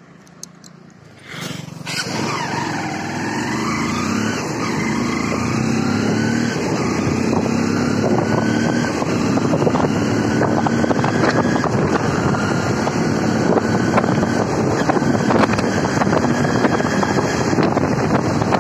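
Motorcycle engine running while riding, heavy wind rush on the microphone. The sound comes in abruptly about a second in, and the engine note climbs as the bike gathers speed.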